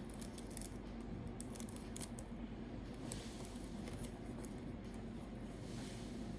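Perfume packaging being opened by hand: a quick run of sharp snips and clicks, like scissors cutting or cellophane wrap being cut, in the first two seconds, and another snip about three seconds in, over a steady low hum.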